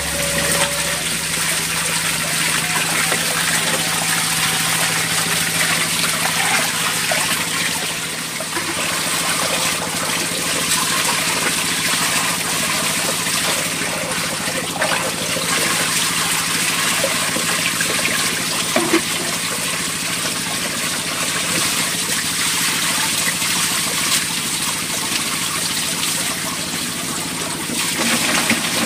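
Water running steadily, a continuous even rush with no break.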